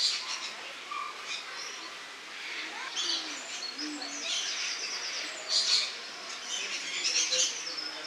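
Rainbow lorikeets calling: a run of short, harsh, high-pitched screeches and chatters from several birds, overlapping and repeated, loudest about five to six seconds in.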